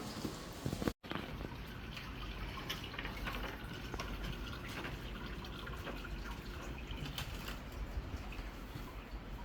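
Water running and dripping, with scattered small clicks; the sound cuts out briefly about a second in.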